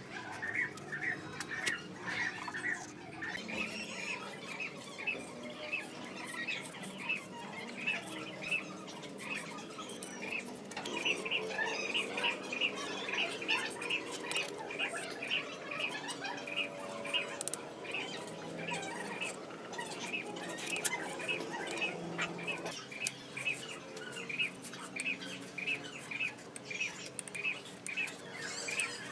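Rhythmic high-pitched chirping, about three chirps a second. It fades for several seconds near the start, then comes back strongly and keeps going, over faint low background sounds.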